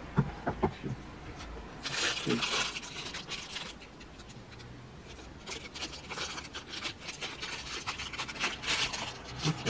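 Clear plastic wrapping crinkling and rustling as a packaged roll of tape is handled, in irregular bursts, a few sharp clicks near the start.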